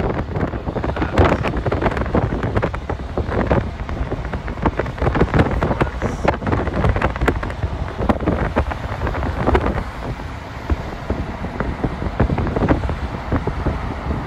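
Wind gusting against the phone's microphone from a moving car, over a steady rush of road noise.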